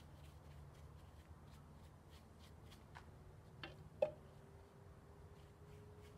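Faint, quick scratching or rubbing strokes, about three a second, over a low steady hum, with a few light knocks; the sharpest knock comes about four seconds in.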